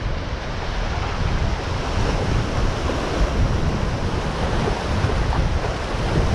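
Wind buffeting the microphone over the steady wash of sea water and surf.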